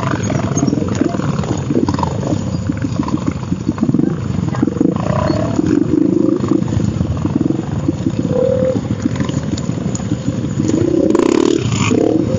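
Several dirt bike engines running at low speed over rough ground, with the nearest engine loudest, and a louder burst near the end.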